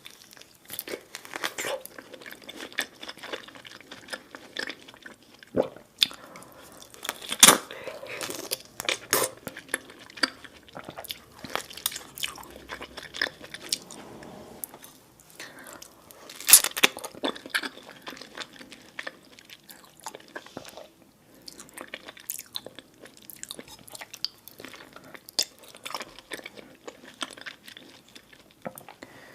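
Close-up eating sounds: a person chewing and biting food, with a steady run of wet mouth clicks and smacks and two louder sharp bites, about seven seconds in and again about sixteen seconds in.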